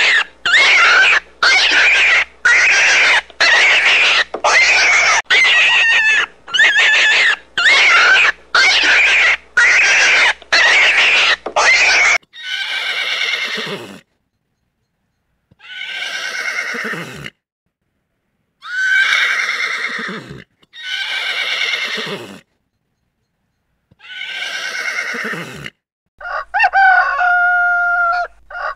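Recorded animal calls, three kinds in turn: first a rapid run of short loud calls, about one and a half a second; then five longer calls, each trailing downward and separated by silent pauses; then, a couple of seconds before the end, a call with clear steady harmonics begins.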